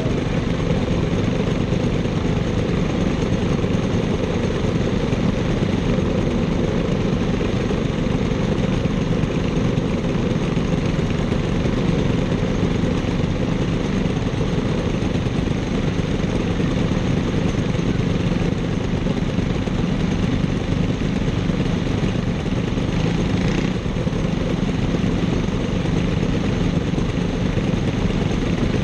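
Racing kart engines idling steadily.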